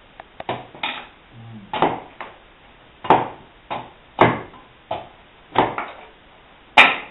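A bladed hand tool chopping at a sweet chestnut shingle stood on a wooden block: about ten sharp wooden knocks at uneven intervals, the loudest near the end.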